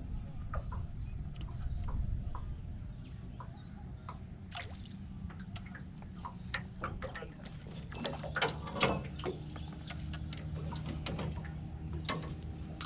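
Water lapping and dripping against an aluminium boat hull, with many small scattered clicks and knocks that come thickest about two-thirds of the way through, over a steady low rumble.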